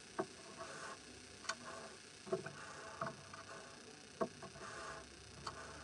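Light plastic clicks, about six at uneven intervals, as Hama fuse beads are set onto the pegs of a plastic pegboard.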